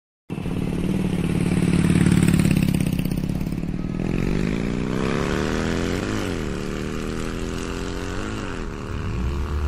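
A motor vehicle's engine comes in suddenly and runs under load. From about four seconds in its pitch climbs as it accelerates, then twice rises to a peak and drops back, a little after six seconds and again after eight.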